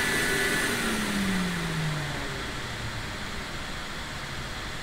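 Steady whir of a small electric fan or blower. It slows over the first two seconds, its pitch falling and its level easing off.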